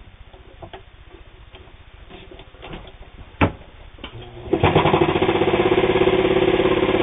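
New Home electric table-model sewing machine, a worm-gear-driven straight-stitch machine, starting up about four and a half seconds in and running steadily with a fast, even stitching rhythm as it sews through two layers of heavy split leather. Before it starts there are a few soft handling clicks and one sharp click.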